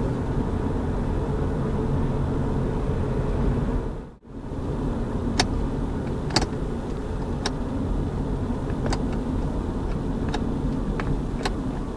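Car cabin noise while driving: a steady low rumble that drops out abruptly for a moment about four seconds in, then a string of sharp, unevenly spaced clicks.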